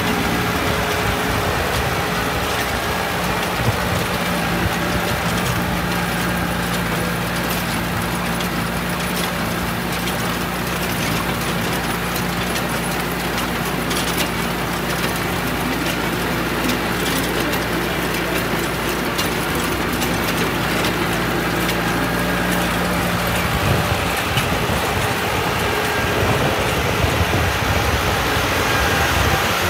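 Tractor engine running steadily while a New Holland baler works, baling vetch, with scattered clicks and knocks from the baler mechanism. The steady engine hum changes about three-quarters of the way through.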